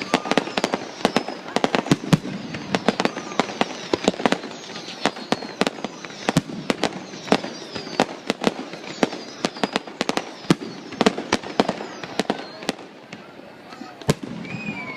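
Fireworks going off: rapid sharp bangs and crackles of bursting shells, several a second, with high falling whistles. The bursts thin out near the end.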